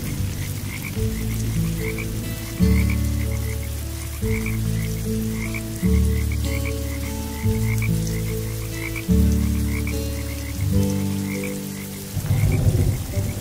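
Frogs croaking in quick, repeated high chirps over slow, sustained low music chords that change every second or two. Rain patter comes in near the end.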